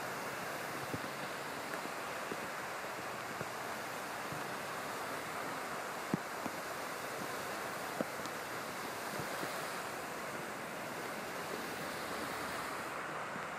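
Steady rushing wash of cars ploughing through deep floodwater on a freeway in heavy rain, tyres throwing up spray, with a couple of sharp clicks about six and eight seconds in.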